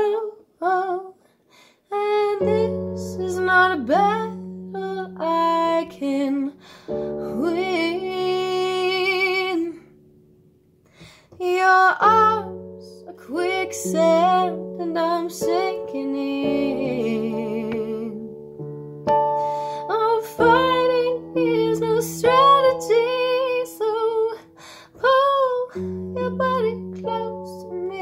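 A woman singing with piano accompaniment: held chords under a voice that moves in short phrases. The music briefly drops away about ten seconds in, then picks up again.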